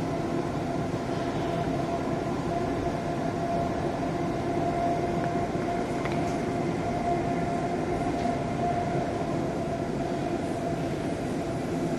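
Delhi Metro train running steadily along an elevated track, heard from inside the carriage: a continuous rumble of wheels and running gear with a steady whining tone.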